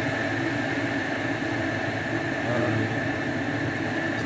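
Steady low droning hum with a thin, high whine held on top.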